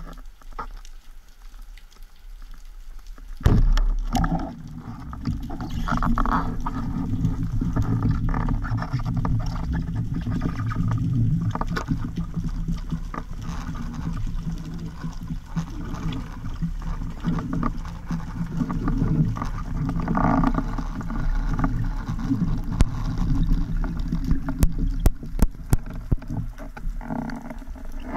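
Underwater sound of a speargun firing: one sharp loud thump about three seconds in. It is followed by a steady low rushing rumble of water as the spearfisher swims up, with a few sharp clicks near the end.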